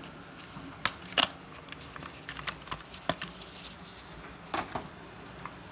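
Lionel reefer model railway wagon being handled and worked out of its cardboard box insert: an irregular scatter of sharp clicks, taps and light scrapes of the wagon against card.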